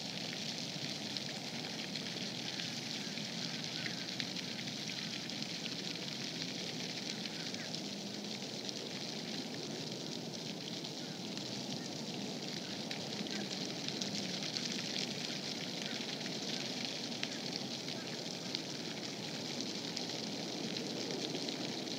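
Steady outdoor background hiss with faint crackling throughout, with no distinct event standing out.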